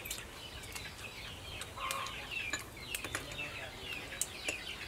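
Chickens calling again and again in short falling chirps, with a louder cluck about two seconds in and a few sharp clicks mixed in.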